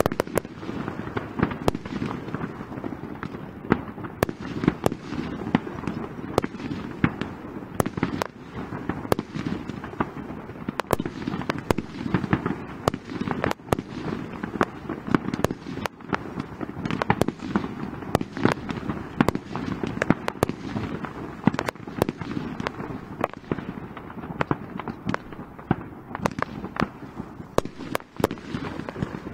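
Aerial fireworks display: a dense, irregular run of sharp bangs and cracks from shells bursting, several a second, over a continuous low rumble of further explosions.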